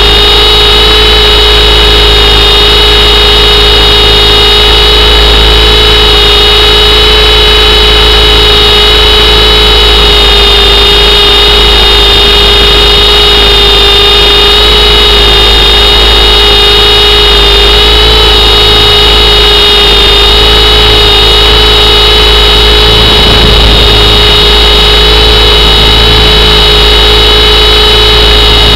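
RC helicopter's motor and rotors heard from a camera mounted on the helicopter itself: a loud, steady whine that wavers only slightly in pitch as it flies.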